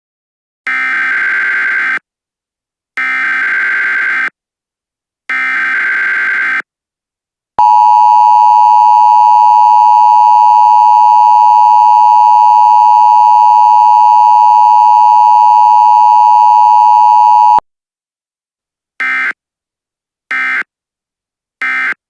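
Emergency Alert System broadcast tones: three SAME header data bursts about a second and a half each, then the loud steady EAS attention tone for about ten seconds, then three short end-of-message data bursts near the end.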